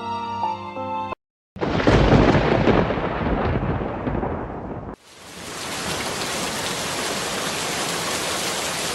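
A rumbling thunderclap that starts about a second and a half in and fades away, then steady heavy rain from about five seconds in. The first second holds the end of a piece of music, followed by a brief silence.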